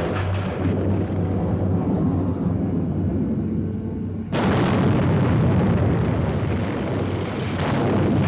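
Film sound effects of the Nautilus ramming a ship: a steady low engine hum, then about four seconds in a sudden loud crash that carries on as heavy noise and swells again near the end.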